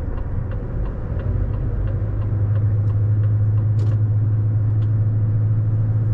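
Inside a truck cab, the diesel engine runs with a steady low hum that grows louder about two seconds in. Over it, a regular light ticking about three times a second, the turn-signal indicator.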